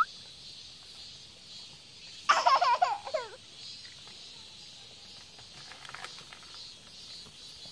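A short burst of laughter about two seconds in, wavering and falling in pitch, over faint outdoor background.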